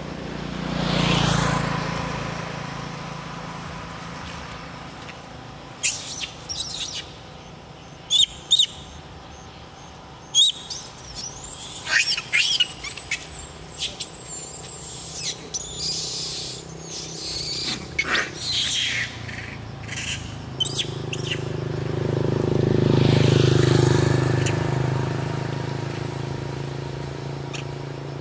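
A vehicle passes by twice, once in the first few seconds and again about two-thirds of the way through, its sound swelling and fading. In between comes a cluster of short, sharp high-pitched chirps and squeals with quick pitch sweeps.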